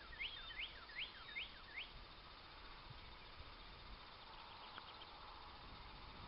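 A songbird singing a quick run of about seven repeated high sweeping notes over the first two seconds, then faint outdoor background hiss.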